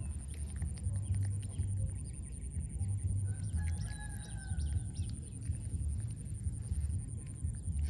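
Outdoor field ambience: a low, fluctuating rumble, typical of wind on the microphone, under faint bird chirps and one drawn-out whistle-like call about three and a half seconds in.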